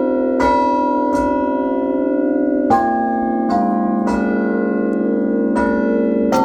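Restored century-old Meneely chime of tuned bronze bells playing a tune. About seven strokes, one bell at a time at uneven spacing, and each note rings on under the next.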